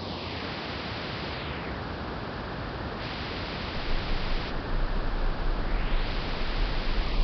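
Synthesized sci-fi 'alien stalker' sound effect: a steady hiss of noise whose brightness sweeps down and back up, with a deep rumble swelling in about four seconds in and the whole getting louder and more uneven.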